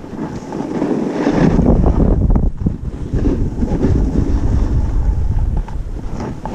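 Wind buffeting an action camera's microphone while skiing downhill, a loud rushing rumble that swells about a second and a half in, with the skis scraping over groomed snow through the turns.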